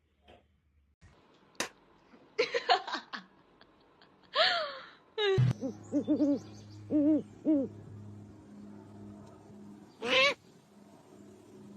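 Animal calls: several short pitched cries, and about halfway through a run of four short, low, arched hoot-like notes over a steady low hum.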